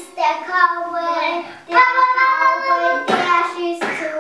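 Children singing a song in held, stepping notes, with two short breathy bursts about three and four seconds in.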